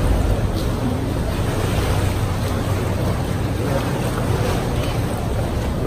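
A tour boat's motor running steadily at low speed, with water sloshing against the rocks and wind buffeting the microphone.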